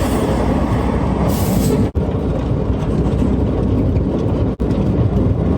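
Steady loud rumble of wind and road noise while riding an electric tricycle along a highway, with a short hiss about a second and a half in and two momentary dropouts.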